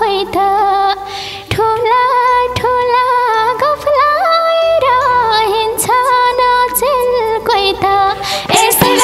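Live Nepali lok dohori folk music: an ornamented melodic lead over a steady beat of madal drum strokes.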